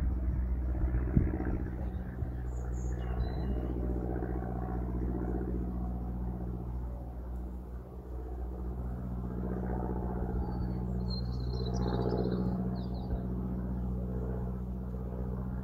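Steady low drone of an engine running, a constant-pitched hum that swells a little about two-thirds of the way in.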